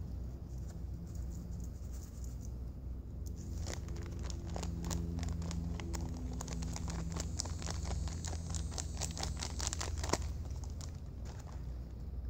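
Foil-lined freeze-dried meal pouch crinkling and crackling as it is opened and handled with gloved hands, the crackle densest from a few seconds in until near the end.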